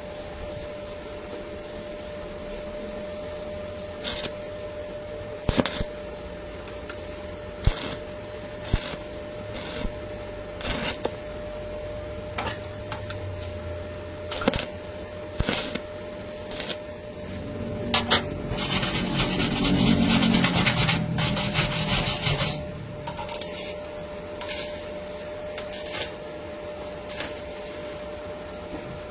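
Metalworking sounds: scattered sharp knocks and clicks over a steady hum, with about five seconds of louder scraping crackle around the middle.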